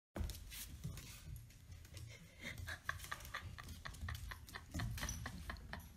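A dog's claws clicking on a hardwood floor as it trots about, a quick run of light taps several a second, with soft low bumps.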